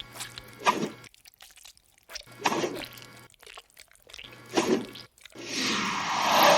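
Slimy alien blob sound effect: three short wet squelches or drips about two seconds apart, then a longer, louder wet slosh that swells up near the end.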